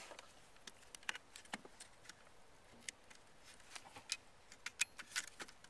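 Faint, irregular small clicks and rustles of hands handling a phone camera and fitting a plastic micro fuse into a car's fuse box.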